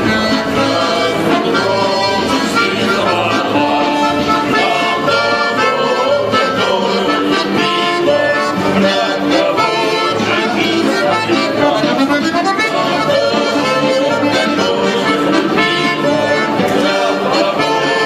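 Button accordion playing a lively tune in a Russian street-music style, with a man's voice singing along.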